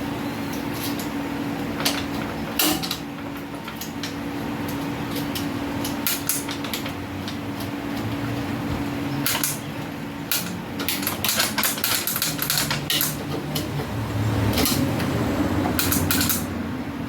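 Bench grinder motor parts and tools being handled during reassembly: scattered sharp clicks and knocks of metal as it is bolted and screwed together, coming thick and fast in the second half, over a steady low hum.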